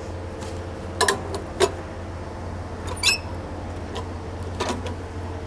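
Metal knocks and clanks as a blue suction hose is worked onto a slurry tanker's outlet coupling, four or five short knocks with a brief squeaky scrape about three seconds in, over a steady low hum.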